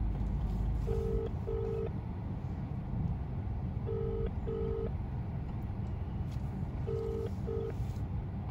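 Telephone ringback tone of the Indian pattern, a low double beep repeating every three seconds (three times), as an outgoing phone call rings out. Under it runs a low steady rumble.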